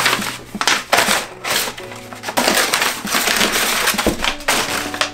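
Crumpled brown kraft packing paper rustling and crackling in irregular bursts as it is pulled and pushed aside in a cardboard box, over background music.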